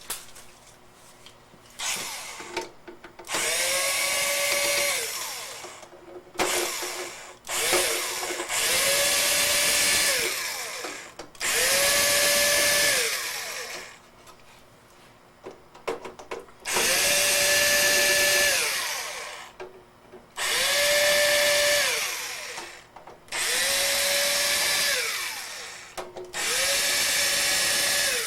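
Power drill run in about seven short bursts, each spinning up to a steady whine, holding briefly, then winding down.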